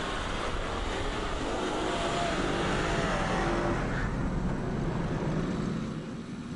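Land Rover Discovery at full throttle in deep snow with stability control switched off, wheels spinning as it slides into a skid: a steady rush of tyre and snow noise under a wavering engine note, easing off after about four seconds.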